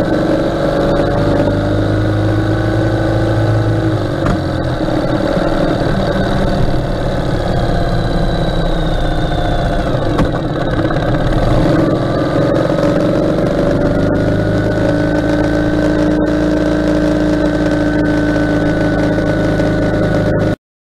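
Ural sidecar motorcycle's flat-twin engine running under way, heard close up from the bike with road and wind rush. Its note dips about four seconds in, then climbs again and holds steady, and the sound cuts off abruptly near the end.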